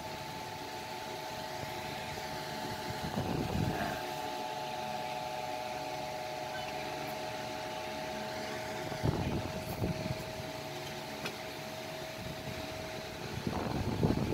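A steady machine-like hum of several fixed tones runs underneath. Three short bouts of handling noise, knocks and rubbing, come as a titanium motorcycle exhaust is picked up and turned over by hand: one a few seconds in, a louder one about nine seconds in, and one near the end.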